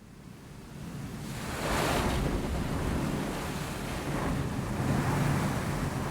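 Car wash running: a steady rushing spray of water over a low rumble, swelling up from silence over the first two seconds and then holding steady.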